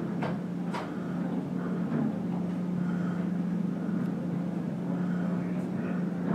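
Large hydraulic demolition excavator's diesel engine running steadily as it tears at building wreckage, with two sharp clanks of debris within the first second.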